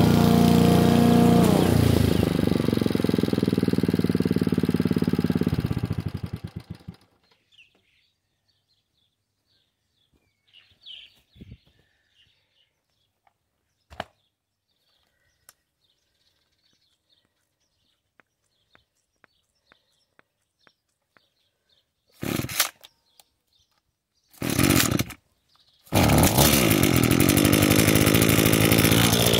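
Honda HRU216 lawn mower engine shut off, its pitch falling as it runs down to a stop over a few seconds. After a pause with a few faint clicks, an Echo two-stroke string trimmer is pull-started twice, catching on the second pull and then running fast and steady.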